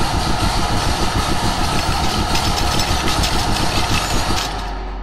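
A loud, dense mechanical rattle with a rapid pulsing beat, cutting off about four and a half seconds in and leaving a lower steady hum.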